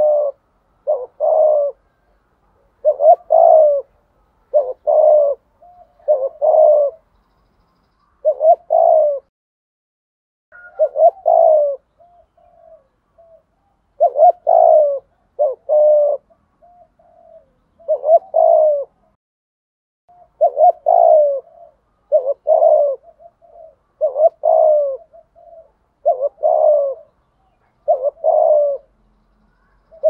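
Spotted dove (chim cu gáy) cooing over and over in the 'thổ cục đinh' style of call, each coo a short, low phrase, repeated about every one to two seconds with a few longer pauses and softer notes in between.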